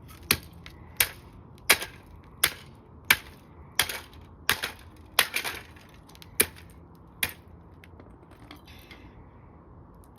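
Old alarm clock being smashed: about a dozen sharp, hard blows, roughly one every 0.7 s, stopping about seven seconds in.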